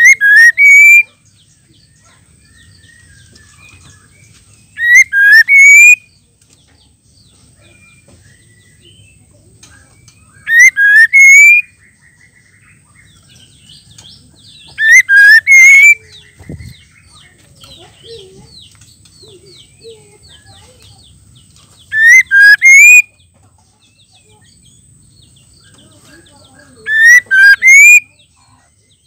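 Female white-rumped shama calling: six loud, clipped bouts, each a quick run of two or three rising whistled notes, about every five seconds, with soft twittering between them. This is the female's call that shama keepers play to rouse males into singing.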